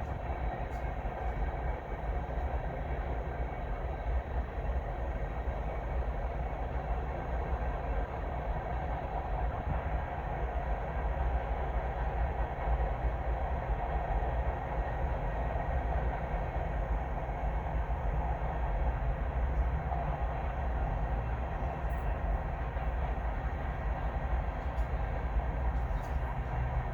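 Long freight train of grain cars rolling past, a steady low rumble of wheels on the rails.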